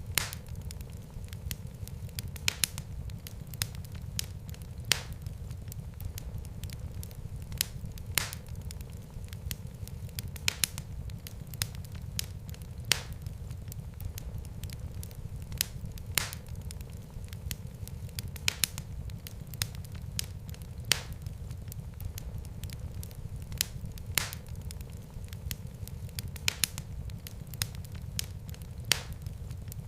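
Fireplace fire crackling: sharp pops every two to three seconds over a steady low rumble of the flames.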